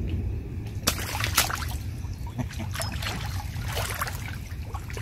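Shallow lake water splashing and sloshing as a large common carp is released from an angler's hands and swims off, with sharp splashes about a second in and more spattering a little later, over a low steady rumble.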